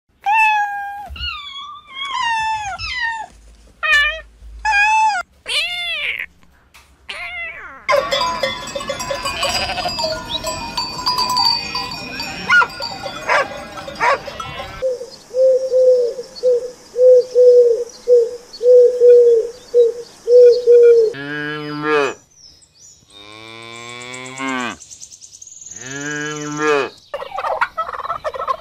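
A series of animal calls: kittens mewing in the first several seconds, then a flock of sheep bleating together, followed by further repeated livestock calls and a few long, loud calls near the end.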